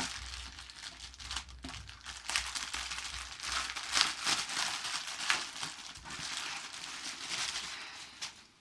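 Plastic packaging crinkling and rustling as a folded t-shirt is pulled out of its bag and unfolded, in dense crackly handling noise that dies away near the end.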